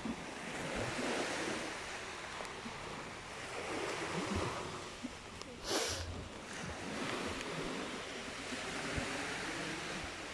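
Small waves breaking and washing up a sandy beach, a steady rushing that swells and fades, with wind on the microphone. There is a brief louder rush a little past halfway through.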